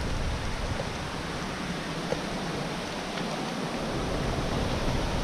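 Steady, even rushing wash of ocean surf on a rocky shore.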